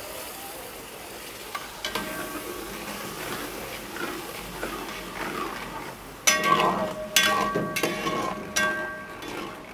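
Masala sizzling in a large metal pot as tamarind water is poured in, then a metal spatula stirring the curry. The spatula scrapes and clanks against the pot, with sharp, ringing clanks from about six seconds in.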